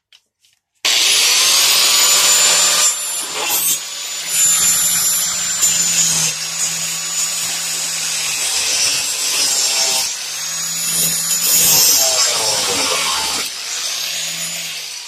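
Angle grinder spinning up about a second in and cutting into the rusted door-skin metal where it is still holding. Its high whine dips several times as it bites in and then recovers, and it winds down at the very end.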